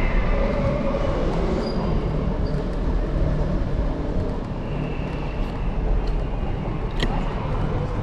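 Steady low rumble of wind and rolling noise from an Apollo Explore electric scooter riding over plaza paving, heard through its handlebar-mounted camera, with a single sharp click about seven seconds in.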